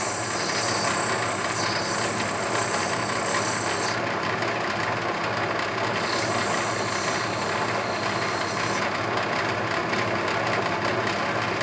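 Lapidary diamond wheel running steadily on its motor, with a high grinding hiss while the wet opal is pressed to the wheel: twice, for about four seconds and then about three, stopping as the stone is lifted off.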